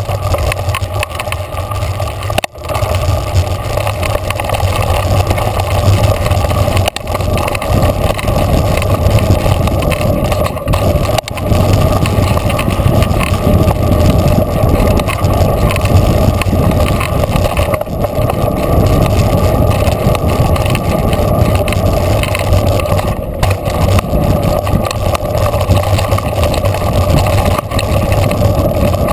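Mountain bike rolling fast down a dirt trail, heard from a handlebar-mounted camera: a steady, loud rush of tyre and wind noise with a low rumble, dipping briefly a few times.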